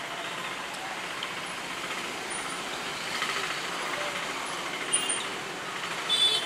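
Steady street traffic noise with passing vehicles, with a couple of brief, sharp, higher-pitched sounds near the end.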